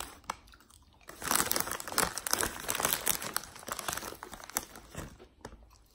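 Plastic chip bag crinkling and rustling as a hand reaches in for chips, a run of crackles from about a second in until near the end.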